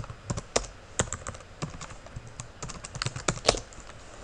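Typing on a computer keyboard: a quick, irregular run of key clicks that stops shortly before the end.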